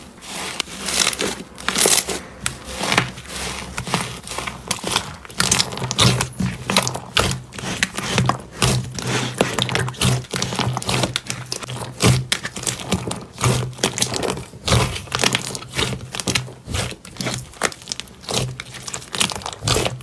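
Slime being squeezed, poked and stretched by hand, giving a dense run of irregular crackles, pops and sharp clicks.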